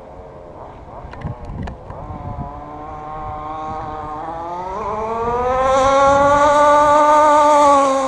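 Fifth-scale FG Modellsport RC car's two-stroke petrol engine running at low revs, then accelerating about halfway through. Its pitch climbs and holds high at full throttle on a speed run, loudest near the end.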